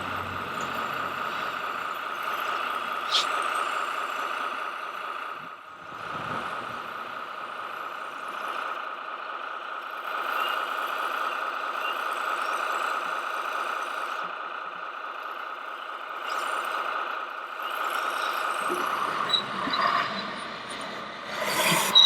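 Radio-controlled scale trucks and construction machines running: a steady whine that dips briefly about five to six seconds in, with some clattering near the end.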